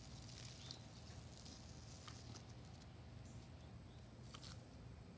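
Quiet garden-hose spray hissing faintly onto a grass lawn, with a few light clicks as a Border Collie puppy chases and snaps at the stream.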